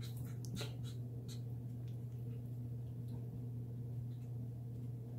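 A steady low hum, with a few faint clicks and scratches in the first second and a half.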